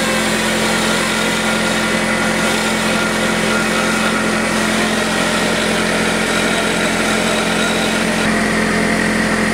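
Pneumatic die grinder running steadily against the edge of a ring cut from 3-inch exhaust pipe, smoothing the cut edge, with no change in pitch or level.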